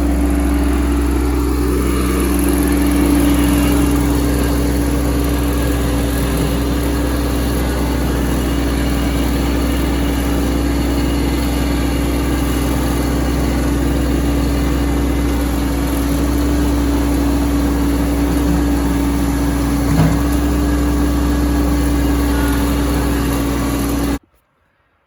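Tractor engine running steadily, with a brief rise in pitch in the first couple of seconds; the sound cuts off abruptly near the end.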